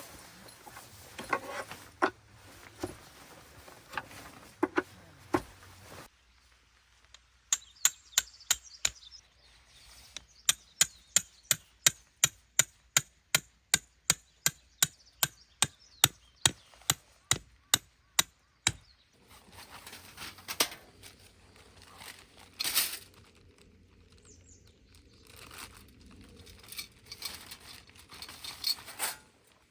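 A long run of sharp, evenly spaced chopping strikes, about three a second, with scattered irregular knocks and handling sounds before and after.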